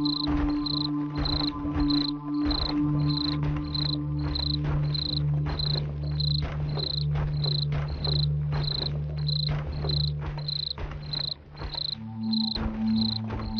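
Cricket chirping in an even rhythm of about two chirps a second, over a low, steady, sustained drone from an eerie horror background track. The drone shifts to a different held pitch near the end.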